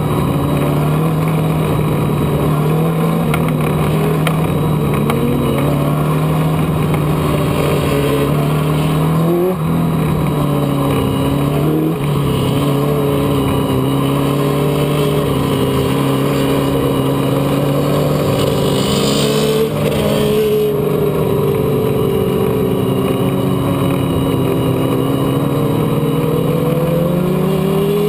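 Race car engine running hard and steadily through a heat race. Its pitch sags and picks up again several times as the throttle is eased and reapplied. The engine is down on power, with no snap, because the fuel pump is failing and fuel pressure is low.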